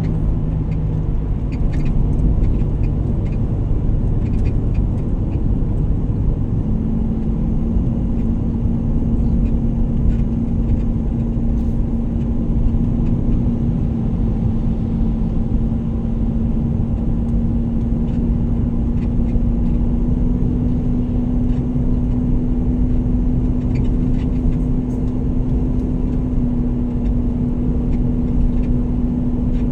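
Road vehicle driving along: a steady engine hum over rumbling road noise. About seven seconds in, the engine note shifts to a single higher hum that then holds steady.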